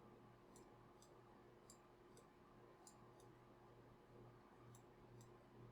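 Near silence: about eight faint, irregular clicks over a low, steady hum, heard while the camera's focus is being adjusted.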